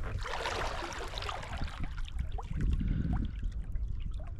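Water splashing and trickling as a kayak paddles across a lake, with a few small drips plinking, over a steady low rumble of wind on the microphone.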